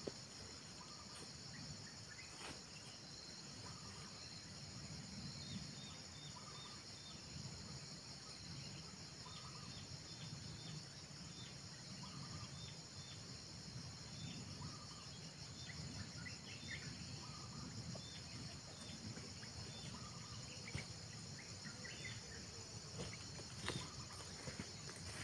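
Steady, high insect drone of cicadas or crickets, with faint short bird chirps repeating about once a second over it.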